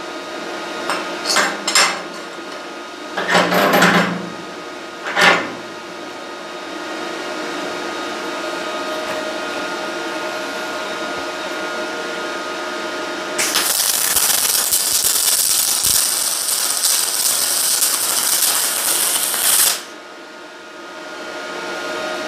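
A few knocks and clatters as a metal clamp is set on a steel welding table over a steady machine hum; about 13 seconds in, the MIG welding arc of a Parkside PMSG200A2 strikes on aluminium square tube and runs as a loud, even hiss for about six seconds, then cuts off suddenly. This is a second bead laid with the voltage turned down a little from about 18.4 V.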